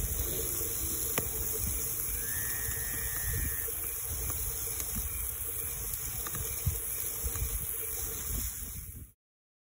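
Jumbo shrimp sizzling on a grill grate over a mesquite fire, a steady hiss with a few sharp pops, over a low fluttering rumble. The sound cuts off abruptly about nine seconds in.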